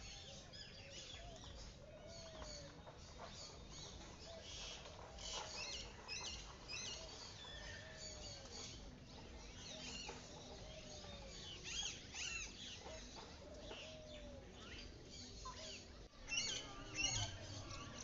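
A mix of birds calling in an aviary: many small birds chirping and twittering throughout. A soft, lower call rises and falls again every few seconds.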